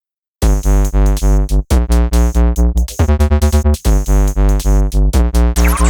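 Electronic background music with synthesizer chords over a heavy, steady drum-machine beat, starting about half a second in.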